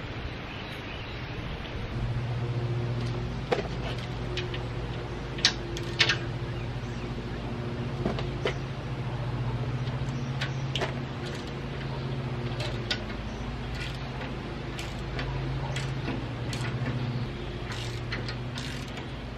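A steady, low machine drone that comes in about two seconds in. Over it, irregular sharp metallic clicks and clinks of a wrench and ratchet working bolts on a steel base plate.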